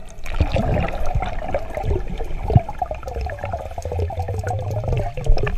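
Sea water sloshing and bubbling close to the microphone, with a low rumble and scattered knocks.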